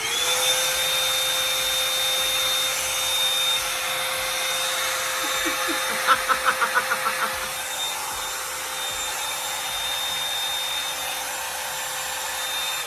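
Hot Tools Signature Series One Step Blowout hot-air brush switched on, its motor spinning up and then running steadily with a whine over rushing air. About six seconds in the sound flutters rapidly for about a second.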